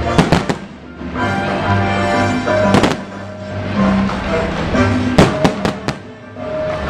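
Fireworks bursting over loud music: three quick sharp bangs just after the start, another near three seconds, and a rapid run of four a little past five seconds, while held musical notes carry on underneath.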